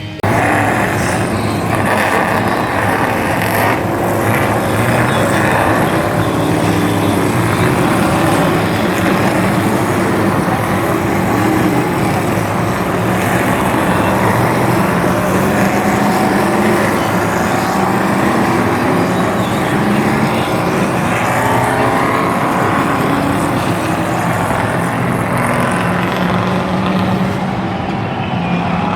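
A field of NASCAR Truck Series race trucks with V8 engines running together, loud and steady, with many engine notes overlapping and wavering in pitch.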